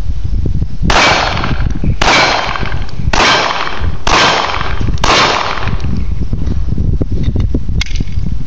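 Five pistol shots from a Glock 23 in .40 S&W, about one a second, each ringing out briefly after the crack. The rounds are reloaded aluminum-case Blazer cartridges, firing normally.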